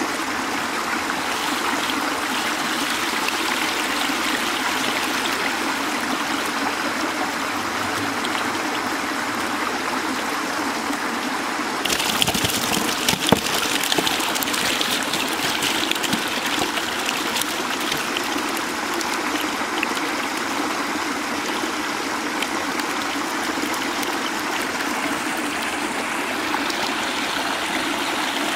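Steady rush of water pouring out of culvert pipes into a small stream. About twelve seconds in it turns brighter and more splashy, with a few sharp clicks.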